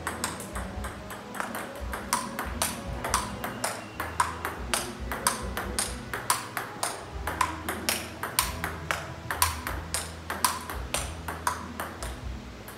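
Table tennis rally: the ball clicking off the paddles and bouncing on the table in a quick, even back-and-forth of sharp ticks, about two to three a second.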